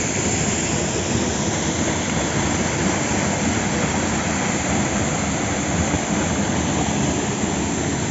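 Waterfall rushing, a loud, steady, even wash of noise with no breaks.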